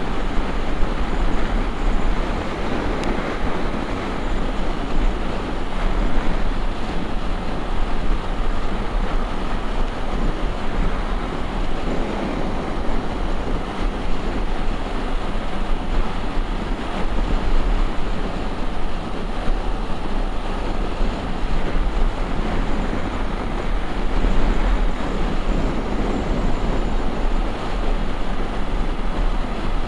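Honda XRE 300's single-cylinder engine running steadily on the move, under a continuous rush of wind and road noise. The valves have been set with extra clearance, which the rider says makes the engine noisier than usual.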